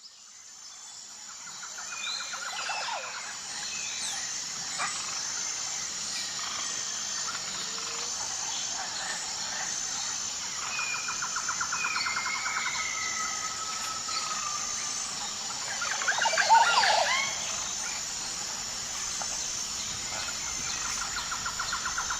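Several birds calling over a steady high insect drone. A rattling trill comes back three times, whistled glides sound in between, and a louder flurry of calls about sixteen seconds in is the loudest moment. The sound fades in at the start.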